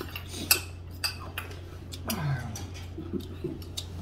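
Chopsticks and utensils tapping and clinking against dishes in a handful of sharp clicks, the loudest about half a second in, with a short murmur of a voice about halfway and a steady low hum underneath.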